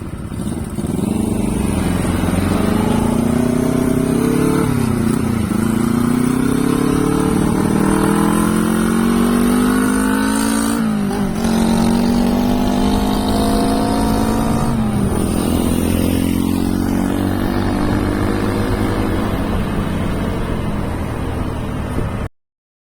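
Honda CB125T's parallel-twin engine running on a custom exhaust under acceleration. The pitch climbs and drops sharply at each upshift, about 5, 11 and 15 seconds in, then holds steady and eases off. The sound cuts off suddenly near the end.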